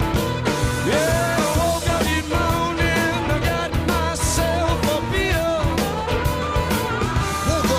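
Rock-and-roll song playing, with a singing voice over a steady beat.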